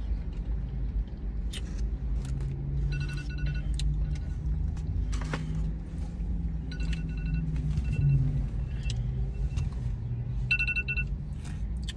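Steady low rumble inside a parked car's cabin, with small clicks and rustles from eating with a plastic spoon. Three short runs of faint electronic beeps come about 3, 7 and 10.5 seconds in.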